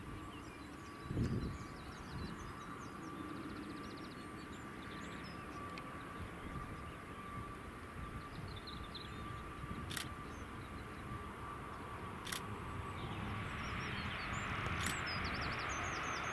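ATR 72-600 twin-turboprop on final approach: a steady drone and low rumble from its engines and propellers, with a thin steady tone, growing louder near the end as the aircraft closes on the runway. Birds chirp faintly, and there are a few sharp clicks.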